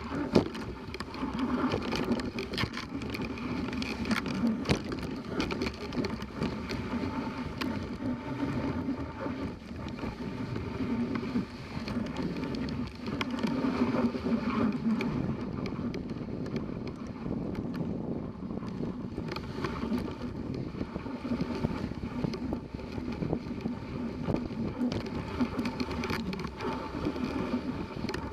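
A dog sled running over a packed snow trail: a steady hiss of the runners with frequent clicks and rattles.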